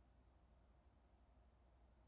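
Near silence: a faint, steady low hum under light hiss.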